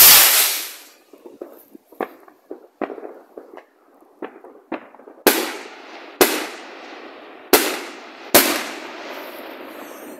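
Fireworks going off: a loud rushing burst as sparks fly, dying away within the first second, then scattered sharp cracks and four louder bangs about a second apart, each trailing off in a long echo.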